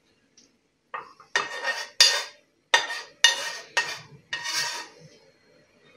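A spatula scraping leftover melted butter out of a non-stick frying pan in a series of about seven short strokes.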